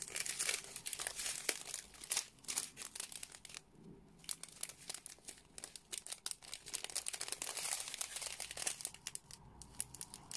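Thin plastic drill bags, a joined strip of small bags holding round diamond-painting drills, crinkling as they are handled and folded, in irregular crackles with a short lull about four seconds in.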